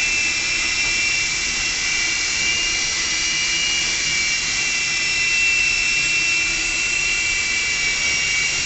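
Blade mCX micro coaxial RC helicopter running, its small electric motors and rotors giving a steady high whine.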